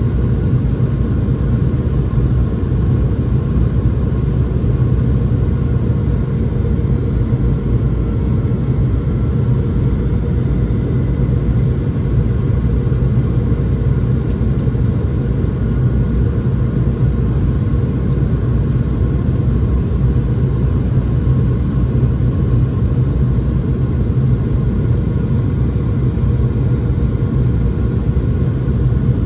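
Steady in-cabin noise of a Boeing 717-200 on approach: a low, even rumble of airflow and its rear-mounted Rolls-Royce BR715 turbofans, with faint steady higher whine tones above it.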